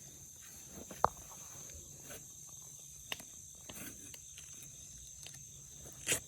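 Steady high-pitched chorus of insects in the garden, with a single sharp click about a second in and a few fainter knocks later.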